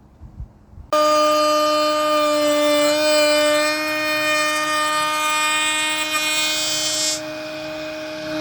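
Electric wood router starting suddenly about a second in and running at full speed with a steady high-pitched whine.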